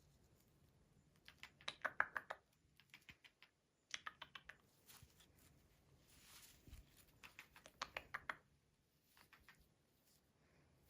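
Quiet bursts of rapid clicking and tapping, each lasting about a second, coming several times; the loudest burst is about two seconds in.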